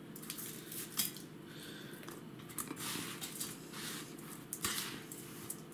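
Dry salt-and-spice curing mix crunching and rustling in a stainless steel bowl as a herring fillet is pressed into it by hand, in several irregular strokes with a few sharper clicks.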